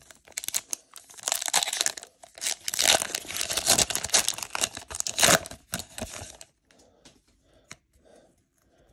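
Foil Pokémon trading-card booster pack being torn open, its wrapper crinkling and ripping for about six seconds, with one sharp, loudest rip a little past five seconds in. Then only faint handling of the cards.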